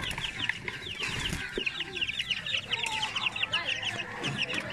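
Chickens calling nearby: a continuous, dense run of short, high peeping calls, several a second.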